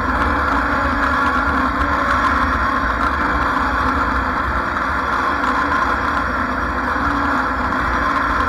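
Lawn mower engine running steadily at a constant speed, heard close up with a heavy low rumble.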